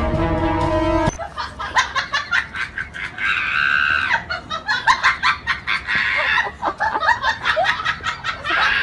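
A dog vocalising in a wire crate: high, rapidly broken yowling and whining cries, with a few longer held wails. A burst of intro music cuts off about a second in.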